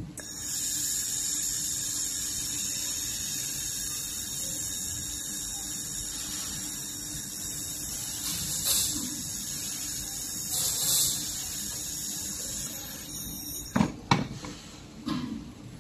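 Handheld fiber laser welding head firing on a small steel piece: a steady high-pitched whine with hiss, swelling briefly twice, that runs for about thirteen seconds and then cuts off. It is followed by a few sharp knocks as the metal head is set down on the wooden table.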